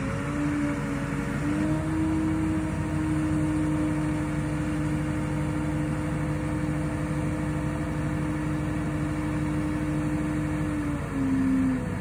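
Mobile crane truck's engine running steadily with a pitched whine while its hydraulic boom is raised. The pitch steps up about a second and a half in and drops back just before the end, with a brief louder surge.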